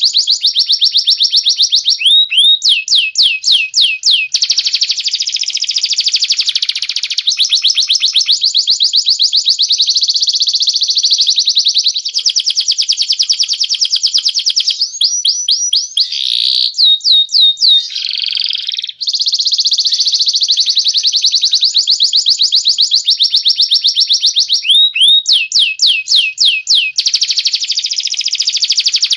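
Cage-bird song of a crested jay (cililin) and a canary: a very fast, steady trill of high repeated notes. Short runs of quick sliding whistles break in about two seconds in, around the middle, and near the end.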